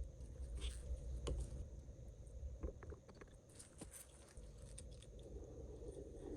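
Small scattered clicks, taps and light scraping of plastic model-kit parts and hand tools being handled on a work surface, with a low rumble underneath.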